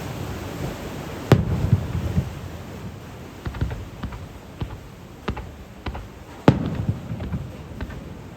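Aerial fireworks bursting: a loud boom about a second in and a louder one near the end, with scattered smaller sharp crackles in between.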